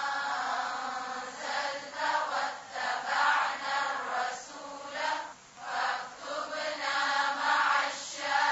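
Chanted recitation of an Arabic dua: a voice intoning drawn-out melodic phrases with short pauses between them.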